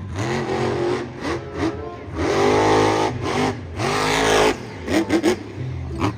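Car engine revving up and down in several swells, the longest and loudest in the middle, followed by a few sharp knocks about five seconds in.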